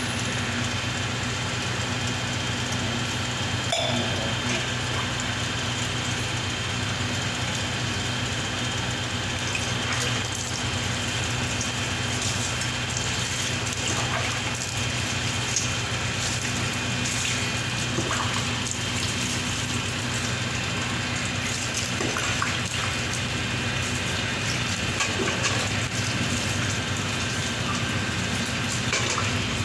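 Water poured again and again from a small steel bowl over a brass statue and splashing onto the floor, with the bowl scooping from a steel bucket of water, over a steady low hum.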